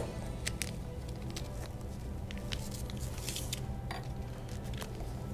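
Light crinkling of a plastic sleeve and a few small clicks as a steel depth-micrometer extension rod is slid out and set down on a wooden bench, over quiet background music.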